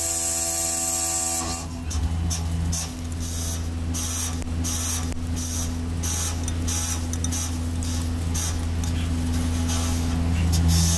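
Swiss-type CNC lathe turning a brass part: a steady spindle hum, with a brief whine in the first second and a half and repeated short hissing bursts as the tool cuts.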